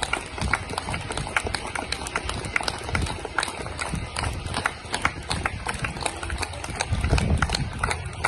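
Rapid, irregular hand clapping: many sharp claps following close on one another.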